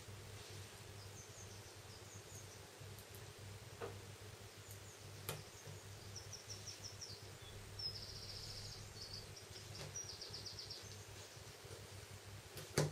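Quiet room tone with a steady low hum and a few faint clicks and taps from fingers handling a Samsung Galaxy S1's antenna cable and plastic frame as the cable is reattached, the sharpest click near the end. Runs of fast, faint, high-pitched ticking come in the middle.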